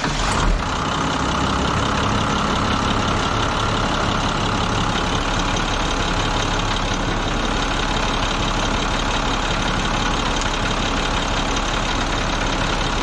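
Converted school bus engine idling steadily just after starting, with a brief flare in the first half second before settling. It has just been refilled with fresh oil after an oil change and is idling for a couple of minutes before the level is checked.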